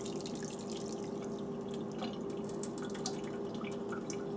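Salmon roe and its liquid being poured into a metal mesh strainer over a sink, dripping and trickling through in many small, quick drips as the roe drains. A faint steady hum runs underneath.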